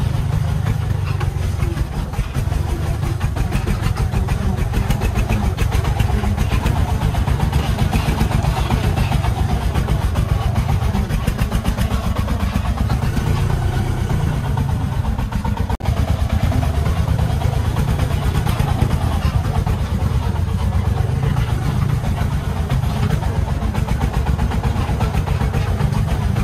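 Heavy diesel engine running steadily with a fast, even chugging beat, dipping briefly about sixteen seconds in.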